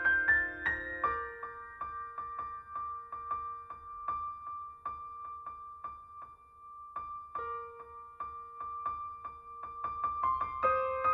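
Background piano music: a steady run of repeated notes over held chords, dropping away briefly in the middle and building again near the end.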